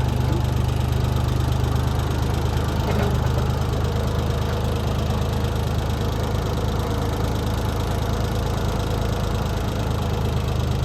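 Engine of a bucket loader running steadily near idle, an even low drone, while the bucket is worked.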